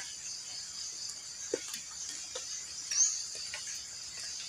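Steady high-pitched chorus of forest insects, with one short rising chirp about three seconds in and a few faint scattered ticks.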